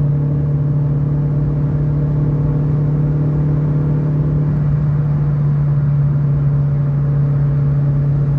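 Fiat Uno Way's cabin at highway speed above 100 km/h, in gear, filled with a loud, steady whistle-like drone over engine and road rumble. The noise, whose cause the owner does not know, appears only above 100 km/h with the car in gear and stops when the clutch is pressed.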